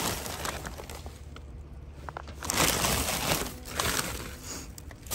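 Plastic garbage bags and wrappings rustling and crinkling as they are shifted by hand, in irregular bursts with a louder stretch a little past halfway.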